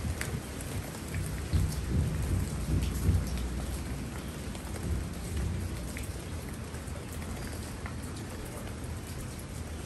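Steady rain falling on leafy ground plants, with single drops ticking close by. A low rumble under the rain is strongest in the first few seconds, then eases.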